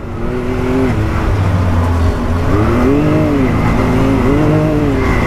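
Can-Am Maverick X3 side-by-side engine being driven on a dirt trail, revving up and easing off with the throttle: its pitch rises and falls about four times over a steady low rumble.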